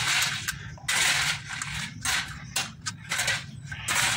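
Ratchet wrench worked in repeated short strokes, about one or two a second, tightening the bolts of a new belt tensioner bearing on a Suzuki K6A engine, over a low steady hum.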